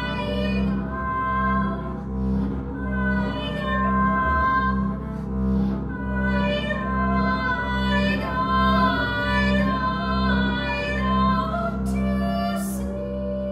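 A woman singing a slow melodic line over a double bass bowed on a steady low held note.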